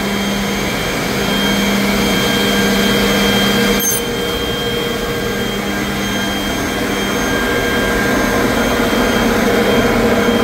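Holz-Her Streamer 1054 edgebander running: a steady motor hum and whine from its spindle and trimming units, over a rushing noise. One sharp click comes just under four seconds in.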